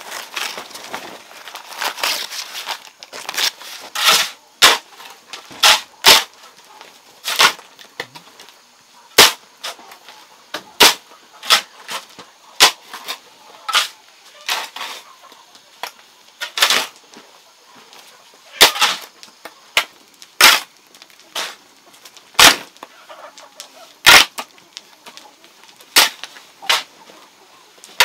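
Hammer driving nails: a long series of sharp, hard blows, unevenly spaced at about one a second.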